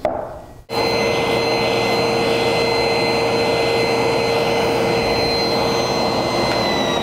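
Table saw and the shop vac hooked to its bowl-hollowing jig running together, as the blade cuts into a wooden bowl that is turned by hand over it. The sound starts abruptly about a second in and holds as a steady rushing noise with a high whine. Near the end the whine drops slightly in pitch.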